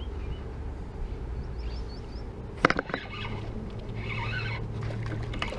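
A steady low rumble on the microphone, with a sharp clatter of fishing rod and spinning reel handling about two and a half seconds in.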